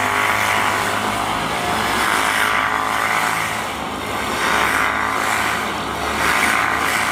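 Can-Am ATV engine revving under load as the quad spins donuts in deep snow, the engine note rising and falling every couple of seconds.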